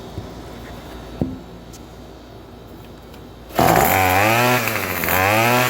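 Gas weed eater engine firing up about three and a half seconds in and revving up and down twice, running again after water was drained from its cylinder. Before it catches there are only a couple of faint knocks.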